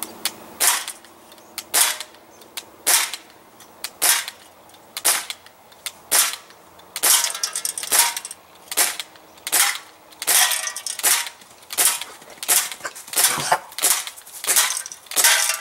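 Crosman C11 CO2 semi-automatic BB pistol fired about twenty times in a steady string of sharp pops. The pops come roughly one a second at first, then a little faster in the second half. The pistol is late in its CO2 cartridge, firing its 120th to 140th shots.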